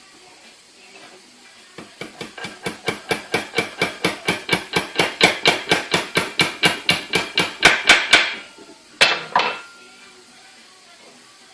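Hammer tapping a tapered steel pin into a vise: a quick, even run of ringing metal-on-metal taps, about five a second, growing louder, then two last blows after a short pause.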